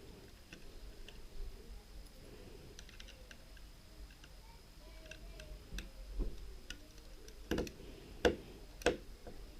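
Faint, scattered clicks and light taps of small parts being handled inside an opened camcorder, with three sharper clicks near the end.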